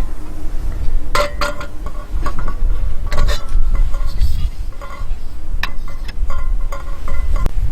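Tableware clinking and knocking as cups and dishes are handled: a dozen or so short, ringing chinks at uneven intervals, over a steady low rumble.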